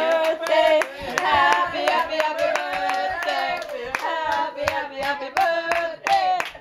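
A small group clapping hands in a steady rhythm while several voices sing along.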